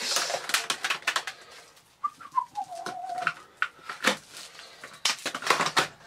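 Plastic clicks and knocks of the hose and wand of a Dyson DC07 upright vacuum being clipped into place on the machine's back. About two seconds in there is a brief falling tone lasting just over a second.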